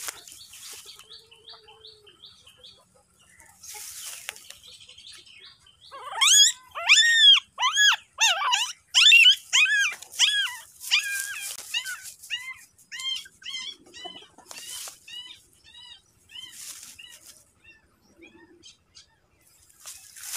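Newborn puppy crying: a run of high-pitched squeals, about two a second, starting about six seconds in and growing fainter over the next several seconds.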